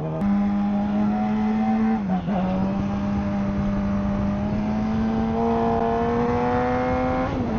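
Motorcycle engine running steadily under way, with wind rush, picked up by a Sena Bluetooth helmet headset microphone. The engine note dips briefly about two seconds in, then climbs slowly as the bike picks up speed.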